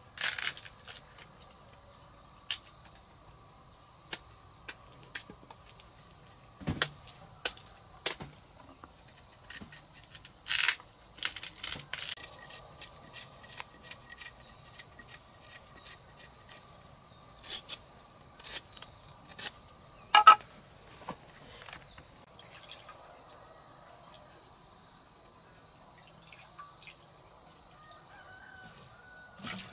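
Insects chirring steadily in the background, with scattered short clicks and knocks; the loudest sharp knock comes about twenty seconds in.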